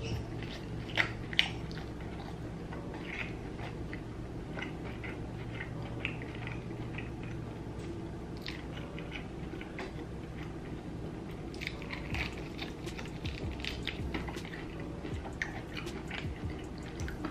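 Crunchy fried chicken being bitten and chewed, with two sharp crunches about a second in, then steady chewing with smaller crunches.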